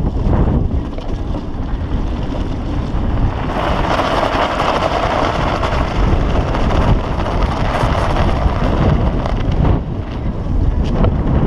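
Strong wind buffeting the microphone, loud and gusting throughout. A brighter rushing noise swells about three seconds in and dies away near the end.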